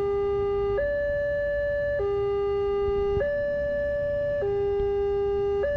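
Wantech railway level-crossing warning alarm from the loudspeaker on the crossing signal mast: an electronic two-tone signal switching between a lower and a higher tone about every 1.2 seconds. It keeps sounding while the barrier arm lifts after the train has passed.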